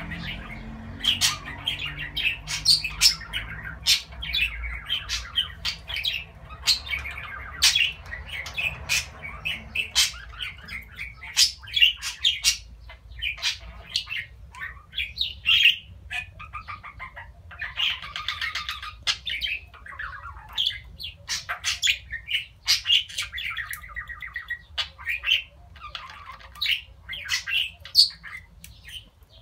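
Budgerigar warbling chatter: a fast, unbroken run of short chirping notes mixed with many sharp clicks.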